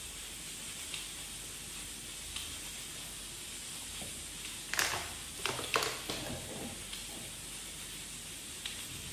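Stovetop pressure cooker hissing steadily as steam escapes through its valve under pressure. A few sharp clattering knocks come about five seconds in.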